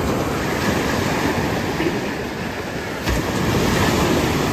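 Sea surf breaking and washing up the beach, with wind rumbling on the microphone; the surf swells a little about three seconds in.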